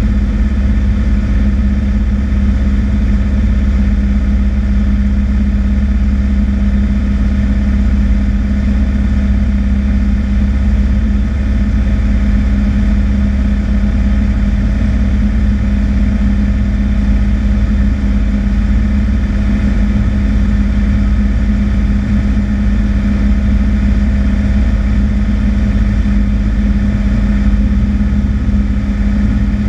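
Cessna 152's four-cylinder Lycoming O-235 engine and two-blade propeller running steadily in flight, heard from inside the cockpit. The pitch holds constant throughout.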